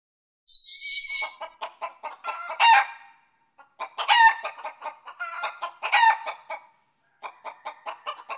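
Chicken calls: one long, high squawk about half a second in, then runs of short clucks in three or four bursts.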